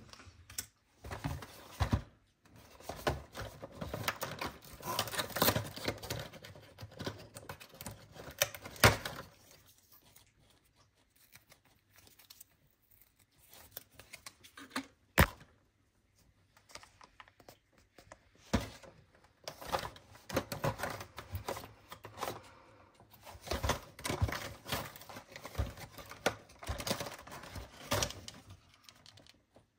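Hands handling a cardboard advent calendar and its packaging: card and paper rustling and tearing, thin plastic trays crinkling, mixed with quick clicks and taps. There are two loud sharp clicks, one about nine seconds in and one about fifteen seconds in, and a quieter spell between the two stretches of rustling.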